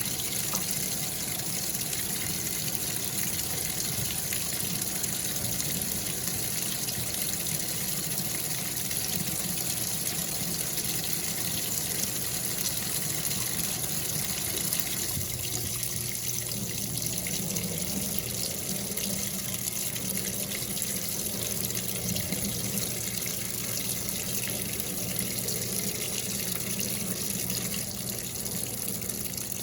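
Water from the tap running steadily into the tub of a Brastemp Baby Mondial BLK20 washing machine as it fills toward water level 3. The flow is a little weak because a pressure washer is drawing on the same supply. The sound of the stream changes about halfway through.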